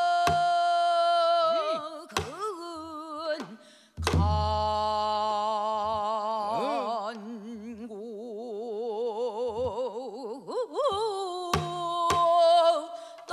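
A woman singing pansori-style, drawing out long held notes with a wide, heavy vibrato as a vocal drill in sustaining the sound. She breaks off briefly about three and a half seconds in, then resumes with a long wavering phrase, with a few sharp knocks along the way.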